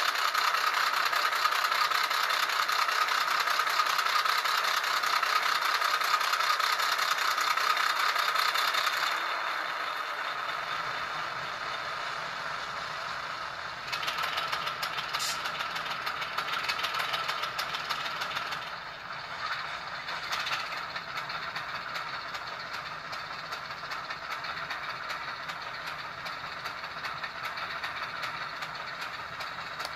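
Diesel switcher engine sound from an ESU LokSound V5 Nano decoder, played through a tiny 8x12 mm sugar-cube speaker in an N scale Southern Pacific VO-1000 locomotive as it creeps along the track. The engine sound is steady, drops to a lower level about nine seconds in, and shifts again a few seconds later.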